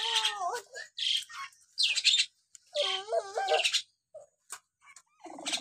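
Common hill myna calling: pitched, speech-like warbling phrases at the start and again about three seconds in, with short harsh hissy calls about one and two seconds in and a few sharp clicks near the end.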